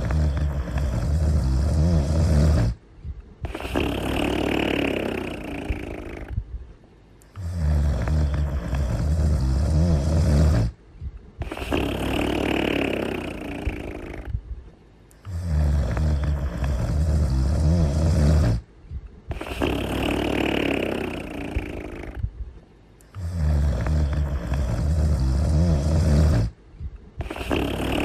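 Cartoon character snoring in slow, even cycles, about four in all: a low snore on each in-breath, then a breathier, higher out-breath, with a short pause between breaths.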